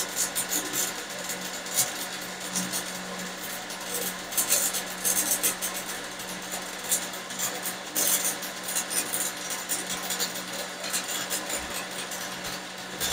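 Stick-welding arc of a 3.2 mm E6013 electrode run at 130 amps from a Rehm Booster inverter: continuous crackling and sizzling with irregular sharp pops, laying a weld on rusty, dirty steel pipe. A steady low hum runs underneath.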